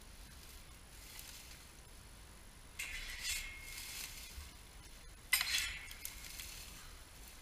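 Long-reach rake pulled through dry dead grass and weeds, two scratchy strokes about two and a half seconds apart, each fading over about a second with a brief ringing note.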